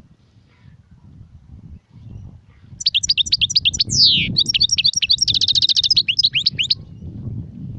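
European goldfinch singing: after a few quiet seconds, a fast run of high twittering notes lasting about four seconds, with a falling slurred note and a rapid trill in the middle of it. A low rumble lies beneath throughout.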